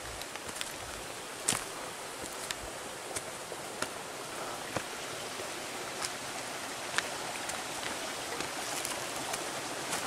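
Footsteps on a rocky, leaf-littered forest path, with irregular sharp clicks of twigs and stones underfoot, over a steady rush of running creek water that grows slightly louder.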